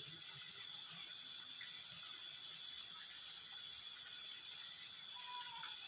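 Steady outdoor background at a pond bank: an even high hiss with a thin, steady high-pitched tone, and a faint tick about three seconds in.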